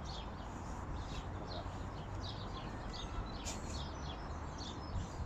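Small birds chirping repeatedly in short, quick notes over a low, steady outdoor rumble.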